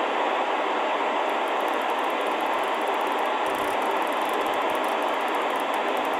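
Sangean ATS-909X2 shortwave receiver's speaker giving a steady hiss of static while tuned in upper sideband around 14.225 MHz on the 20-metre ham band. Any amateur voice is barely audible under the noise, a sign of the set's weak single-sideband reception.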